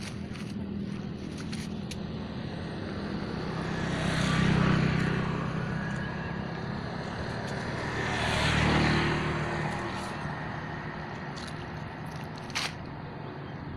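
Two vehicles passing one after the other, each swelling up and fading away over a few seconds, with a short sharp click near the end.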